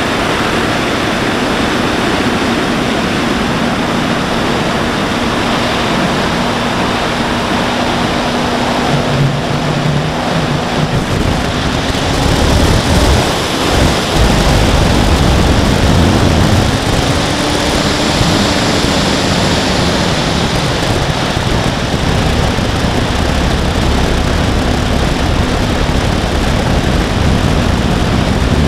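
Wind rushing over the onboard camera of an electric RC plane in flight, with a faint steady hum from its motor and propeller that rises and falls in pitch for a few seconds past the middle. The rush grows louder about twelve seconds in, as the plane banks steeply.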